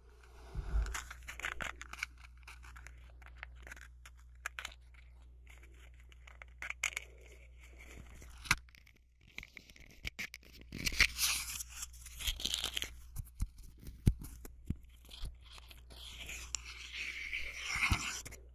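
Small objects handled close to a binaural microphone: scattered clicks and taps, then bouts of scratchy rustling and scraping from about halfway through, with one sharp click a little later.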